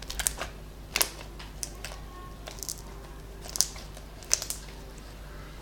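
Slime being squeezed and pressed by hand, giving a string of short sharp clicks and pops from trapped air, about eight of them at uneven intervals.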